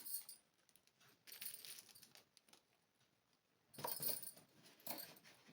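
Intermittent handling noise from unboxing: short rustles and light clinks of packaging and machine parts being moved, the loudest a little before four seconds in and again about a second later.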